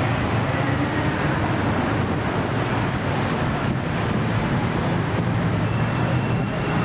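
Steady road traffic noise: a continuous low rumble of cars, buses and motorbikes passing on a busy city street.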